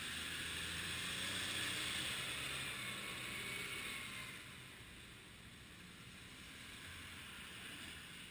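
Street traffic going by: a vehicle's tyre hiss and low engine hum that fade after about four seconds, with another engine hum rising briefly near the end.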